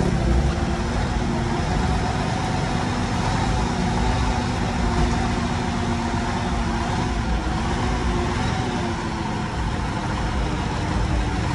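Heavy dump truck's diesel engine running steadily while the hydraulic hoist tips the dump bed up.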